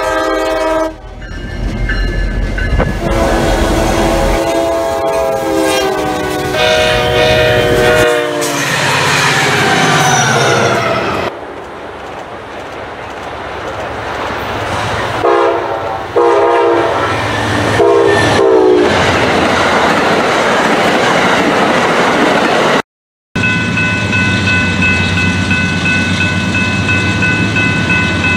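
A cut-together run of diesel locomotive multi-chime horns, several separate blasts with the rumble of passing trains between them. About ten seconds in, one horn slides down in pitch as its train goes by. Near the end comes a steady high-pitched ringing.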